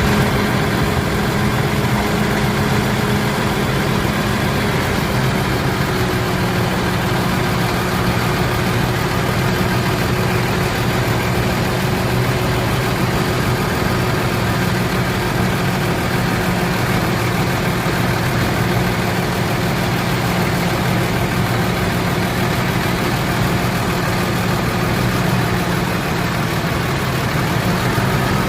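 Vehicle engine idling steadily. Its speed sags slightly about five seconds in and comes back up near the end. It is an engine that keeps stalling by itself.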